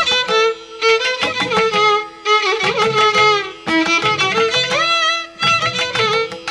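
Music led by a violin playing an ornamented melody with sliding notes, in phrases broken by short pauses, over repeated percussion strikes.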